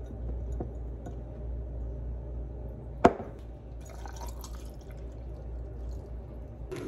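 A single sharp knock about three seconds in, with a few faint clinks after it, over a low steady hum.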